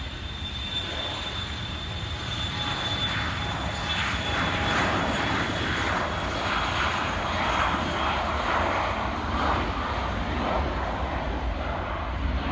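Business jet's engines at takeoff power during the takeoff roll: a steady roar that swells about three seconds in and stays loud, with a thin high whine that fades away over the first half.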